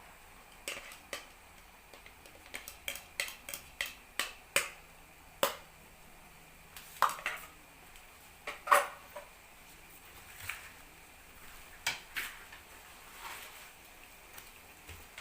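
Kitchen utensils clinking and tapping against cookware in a run of sharp, irregular knocks, loudest about seven and nine seconds in, as beaten egg is poured into the pan.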